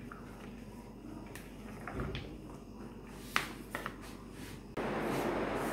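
Quiet handling of a plastic mixing bowl and plastic spoon holding chopped vegetables: a dull knock about two seconds in, then a sharp click and a couple of light ticks as the spoon is set down. A steady hiss comes up near the end.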